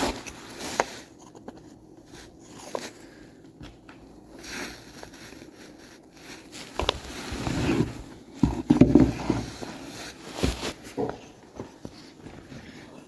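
Wooden parts and screws being handled during assembly: scattered knocks and scrapes of wood, busiest in the middle and later part.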